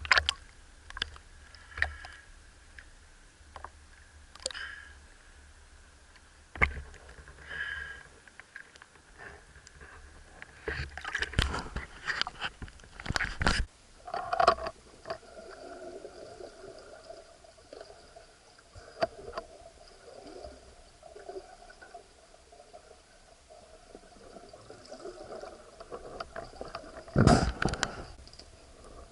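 Water sloshing and gurgling with scattered knocks and clicks, louder in two clusters about halfway through and near the end. A faint steady hum runs under it from about halfway on.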